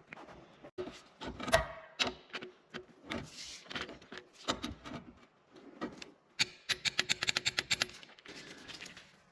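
Hand tools working the crankshaft pulley bolt: scattered knocks and rubs, then a ratchet wrench clicking in a fast, even run of about a dozen clicks lasting a second and a half, about two-thirds of the way in.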